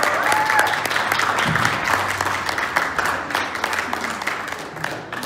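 Guests clapping, with a short whoop about half a second in; the applause thins out and fades near the end.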